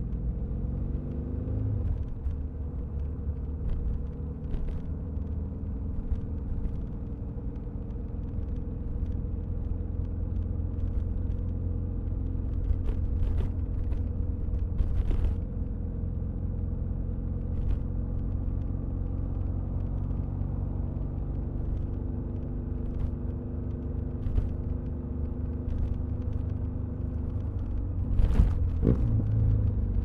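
A BMW R1250RS boxer-twin engine running under way, with a steady low rumble, heard from a recorder inside the rear seat bag. The engine note climbs over the first couple of seconds and changes again near the end. Faint scattered ticks come through over the top.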